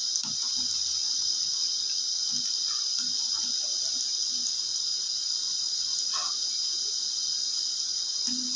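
Breadcrumb-coated potato bites deep-frying in hot oil, a steady high sizzle throughout. There are a few faint knocks from a metal slotted spoon moving in the pan.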